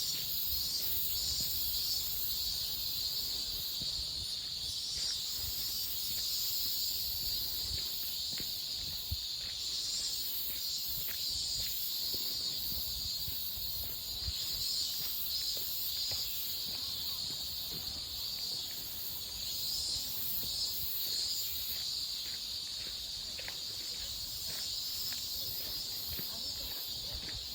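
Chorus of insects, steady high trilling at several pitches at once, with a low rumble underneath.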